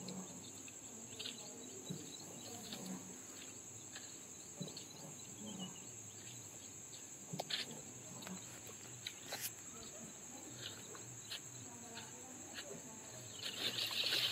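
Steady, high-pitched insect chirring, like crickets in a field, with faint scattered clicks and a louder burst of noise near the end.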